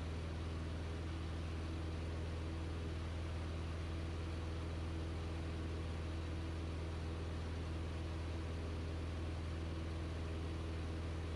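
Light aircraft's piston engine and propeller running steadily in flight, heard from inside the cockpit as an even drone with a strong low hum and no change in pitch.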